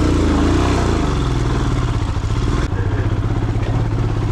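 Motorcycle engine running, its pitch rising and falling with the throttle in the first second or so, then running more steadily after an abrupt change about two and a half seconds in.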